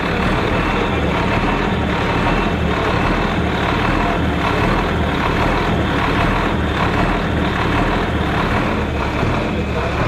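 John Deere 4240's turbocharged six-cylinder diesel engine idling with a steady, loud rumble.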